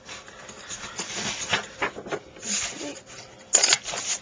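Paper and card rustling and being shuffled by hand in irregular bursts, with a louder rustle about three and a half seconds in.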